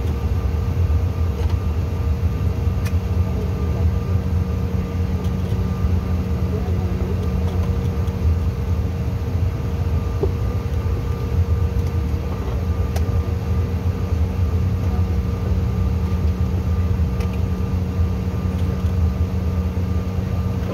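Cabin noise inside a CRJ900 regional jet taxiing: a steady low rumble with a steady hum and whine from its rear-mounted General Electric CF34 turbofans at low power.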